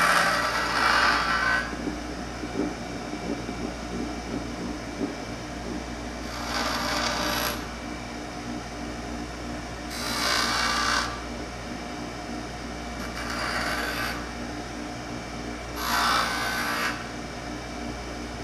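Bench grinder running steadily, with a small steel part pressed against the grinding wheel in five short passes, each a second or so of harsh grinding. The passes come at the start and then about every three to four seconds.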